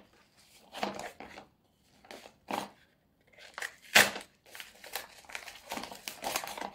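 A small yellow postal packet being handled and opened by hand: irregular rustling and crinkling of the packaging, with one sharp click about four seconds in.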